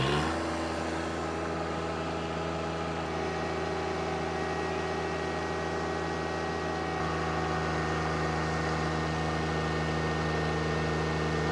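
Turbocharged John Deere 1025R's three-cylinder diesel revving up to full throttle, then held steady at wide open throttle while the tractor strains against a chained load, its hydrostatic drive held at the relief-valve limit as the owner reads it.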